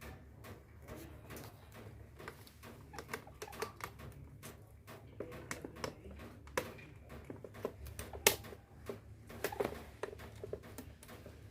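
Irregular light clicks and taps of hand work on electrical fittings (tools, wires and plastic parts being handled), the sharpest click a little past two-thirds of the way through, over a steady low hum.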